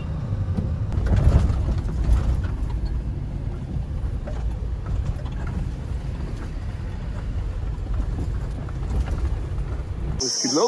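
Steady low rumble of engine and road noise inside an SUV's cabin while driving. Near the end it cuts suddenly to a steady, high-pitched insect drone.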